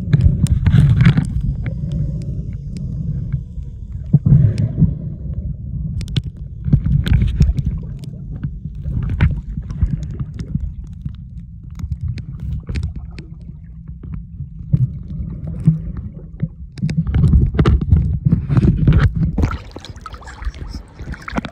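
Muffled underwater water sound from a submerged camera while snorkelling: sloshing and gurgling with scattered sharp clicks. It drops quieter near the end.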